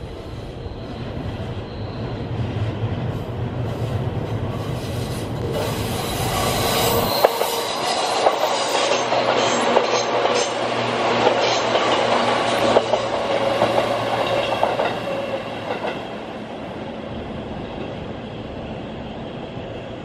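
Seibu 4000 series electric train passing through a station without stopping: its running noise builds as it approaches, its wheels click over the rail joints as the cars go by about midway, then the sound fades as it runs away.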